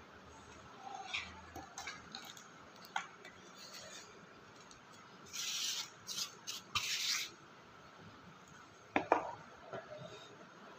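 Dry soil being tipped and scraped out of a shallow pot saucer onto a wooden board by hand: scratchy rustling and scraping in two short spells around the middle. Near the end come two sharp knocks on the board.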